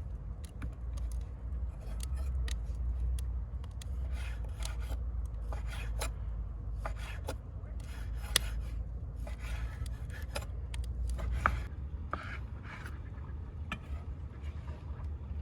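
Irregular scraping and cutting strokes of vegetables being prepared by hand, with a couple of sharp clicks and a steady low rumble underneath.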